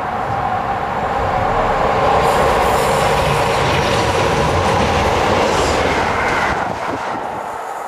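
Freight train passing at speed: a locomotive hauling container wagons approaches and rushes past, its wheels running on the rails, loud and rising from about two seconds in. The noise eases a little after about six and a half seconds as the wagons follow.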